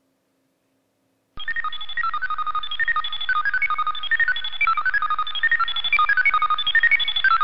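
A fast run of short electronic beeps jumping between several pitches, like a computer's bleeping sound effect, starting about a second and a half in. It sounds as a pressed button sets the machine working.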